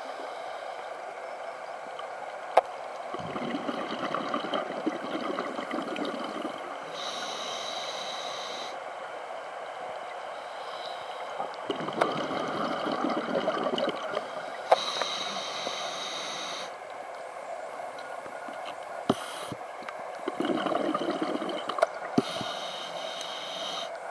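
A scuba diver breathing through a regulator underwater, three slow breaths: each exhale is a bubbling rush and each inhale a high hiss from the regulator. There are a few sharp clicks.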